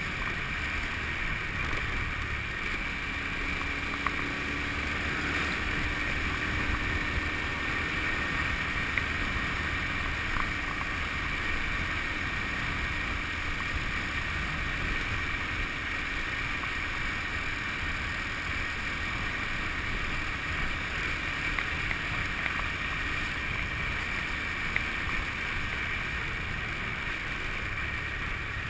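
Steady wind and road noise from a Honda motorbike riding along, with its engine running underneath at an even pace.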